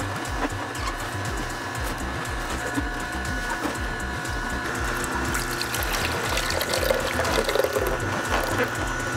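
Nama slow juicer running, its auger pressing purple cabbage and apples, with juice streaming from the spout into a container below.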